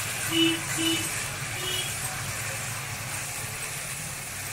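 Vegetables stir-frying in oil in a kadhai, a steady frying noise over a low hum, as they are stirred with a wooden spatula. Three short beeps sound within the first two seconds.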